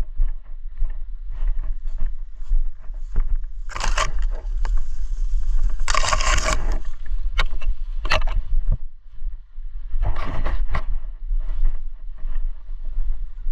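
Rustling and scraping of undergrowth brushing against clothing and the camera as someone pushes through it. There are irregular crackles and three louder rustles, about four, six and ten seconds in, over a low rumble of handling noise on the microphone.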